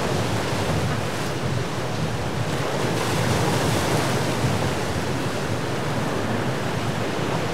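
Surf breaking and washing over rock jetty, a steady rushing noise, with wind on the microphone.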